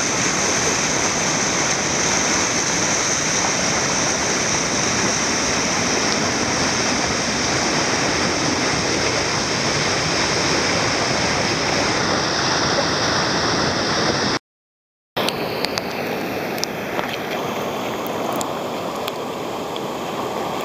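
Whitewater rapids rushing steadily, a dense churning water noise. About two-thirds of the way through it cuts out completely for under a second, then resumes a little softer with a few faint clicks.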